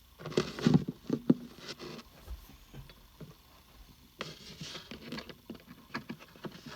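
Handling noise as a USB cable and fan are plugged into a small switch box: a cluster of knocks and clicks with rustling early on, then another run of lighter clicks and rustles later.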